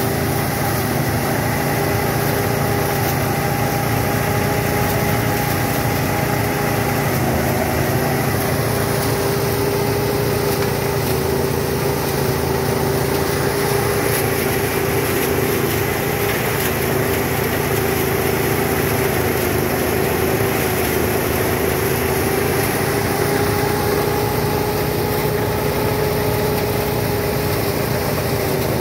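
Small engine running at a steady speed on a motorised rice thresher, with a held whine that wavers slightly in pitch.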